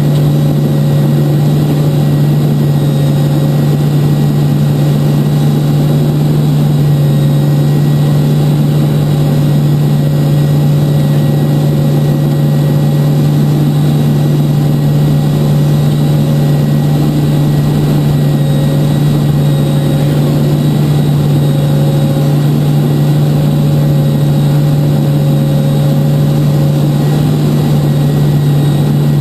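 Steady drone of a C-2A Greyhound's twin T56 turboprop engines and propellers, heard from inside the cockpit, with a strong low hum that holds constant throughout.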